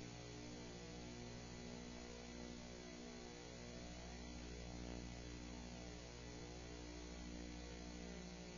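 Faint, steady electrical mains hum with a stack of evenly spaced overtones.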